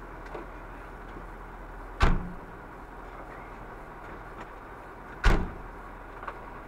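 Two vehicle doors slammed shut, one about two seconds in and another about five seconds in, over a vehicle engine idling steadily.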